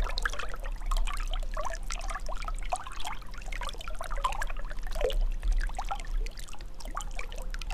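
Water trickling and gurgling, a steady stream of small bubbling sounds, over a low rumble.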